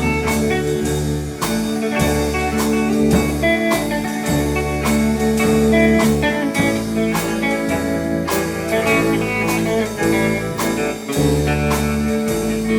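Country band playing an instrumental break between verses, with guitar leading over bass notes and a steady beat.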